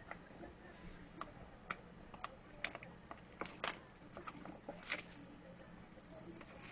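Faint, irregular clicks and taps of hands handling a trading-card hobby box and its packaging, a few sharper snaps among them.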